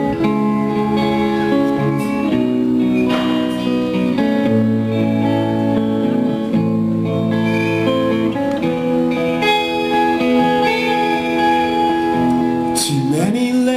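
Live band playing a song's instrumental intro: held guitar chords that change every second or two, with a rising slide near the end.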